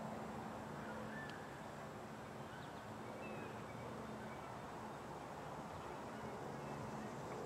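Quiet open-air ambience: a steady, faint low hum under a few faint, short, high bird-like chirps.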